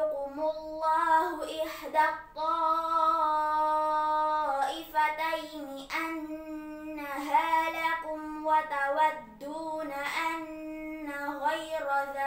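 A girl's solo voice reciting the Quran in tartil style, chanting Arabic verses in several melodic phrases with short pauses. One note a few seconds in is held for about two seconds.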